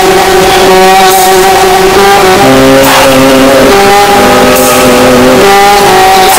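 Extremely loud, clipped and heavily distorted music with no vocals: sustained droning notes that shift pitch about two and a half seconds in and again about five and a half seconds in.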